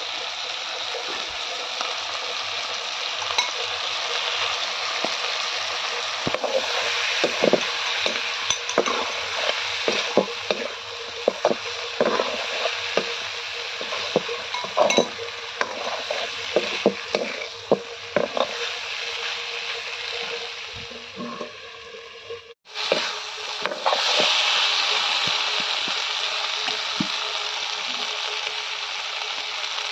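Meat sizzling as it fries in a black wok with chilli paste and spices, a steel spoon scraping and knocking against the pan as it is stirred. After a brief break about two-thirds of the way through, the sizzling goes on steadily with little stirring.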